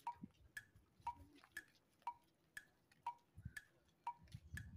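Faint, regular ticking, about two ticks a second, alternating between a lower and a higher note like a tick-tock, with some low rumble in the second half.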